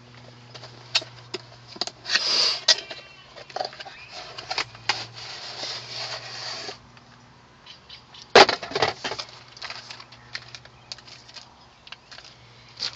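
Car speaker parts and their packaging being handled: scattered clicks and two spells of rustling, then one sharp knock about eight seconds in, over a faint steady hum.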